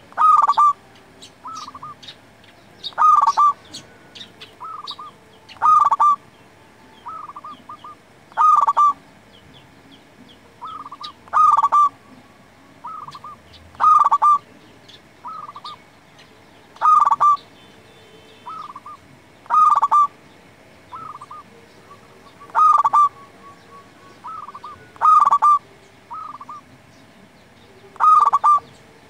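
Zebra dove (perkutut) cooing its song: a loud, short staccato phrase repeated about every three seconds, about eleven times, with softer notes in between.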